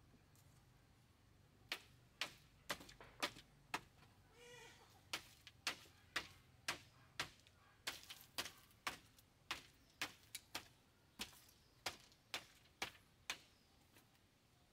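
A steady run of sharp knocks, about two a second, from a hand tool striking bamboo during building work, with a short pause partway through. A brief animal call sounds about four and a half seconds in.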